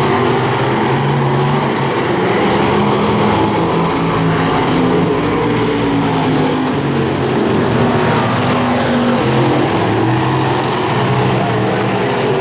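Engines of dirt-track stock cars racing around the oval: loud and continuous, their pitch stepping up and down as the drivers get on and off the throttle.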